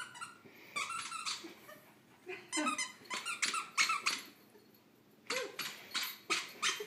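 Squeak toy squeaking in several quick runs of short squeaks, squeezed in a terrier's jaws as he tries to bark with it held in his mouth.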